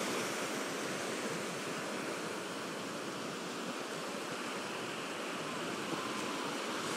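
Ocean surf: small waves breaking and washing up the sand, a steady rushing hiss.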